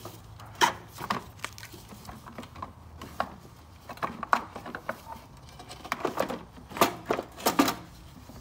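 Knocks and clunks of a two-stroke lawnmower engine being handled and seated onto its mower deck. The knocks are scattered and irregular, with the loudest about half a second in and two more near the end.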